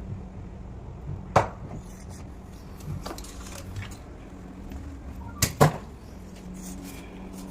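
Sharp knocks or clatters, like parts or tools being handled: one about a second and a half in, and two close together near the middle, over a steady low hum.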